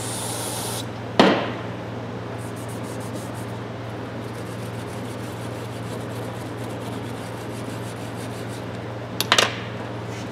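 Small hand brush scrubbing the rubber grip of a steel claw hammer in quick, faint strokes. There is a sharp knock about a second in, and a quick double clatter near the end as a wire brush is set down on the benchtop.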